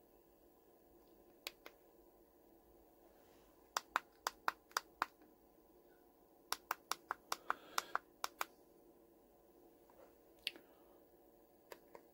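Sharp clicks in quick runs of about four a second, with pauses between the runs, over the faint steady hum of a Chinese diesel heater's fan turning slowly.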